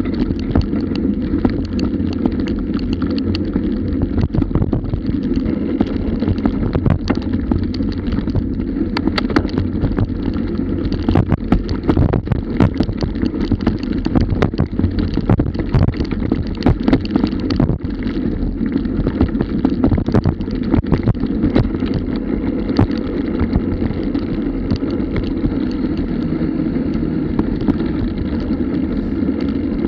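Bicycle riding fast over a rough grass trail, heard through a bike-mounted action camera: a steady muffled rumble of wind and tyres, with frequent knocks and rattles from the bumpy ground.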